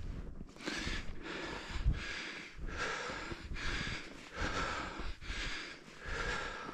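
A man breathing hard and audibly in and out, in a steady rhythm of noisy breaths, while hiking through deep snow.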